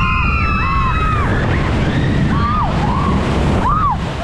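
High voices holding and gliding notes that rise and fall, then a few short swooping calls, over a steady low rumble.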